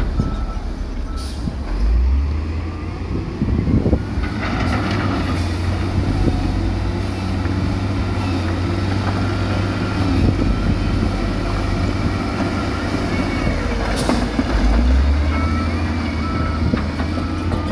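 Heavy diesel engines of dump trucks and a wheel loader running with a steady low rumble. A reversing alarm beeps near the start and again near the end, and there is a short hiss about fourteen seconds in.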